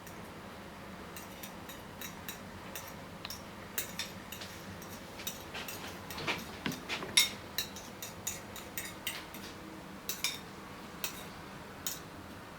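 Eggs and milk being stirred in a container with cutlery, the utensil clinking irregularly against its side a few times a second.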